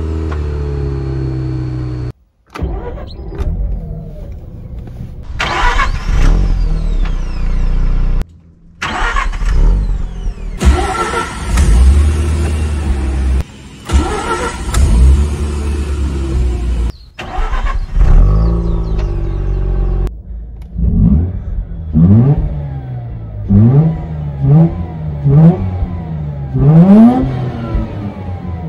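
Mazda RX-8's twin-rotor Wankel rotary engine started several times in separate spliced clips, each start catching into a steady high idle. From about twenty seconds in it is revved in neutral with a quick series of throttle blips, the pitch rising and falling with each.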